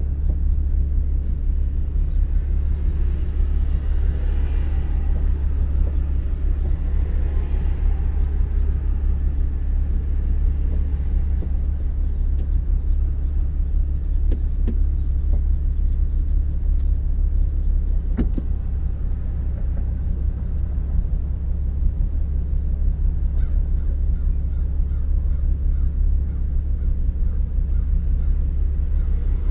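Toyota Supra's engine idling with a steady low rumble, heard from inside the cabin. A single short click sounds about two-thirds of the way through.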